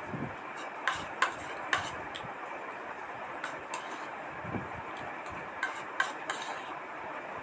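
Fast eating from a plate: several short, sharp clicks and taps, scattered irregularly, over a steady background hiss.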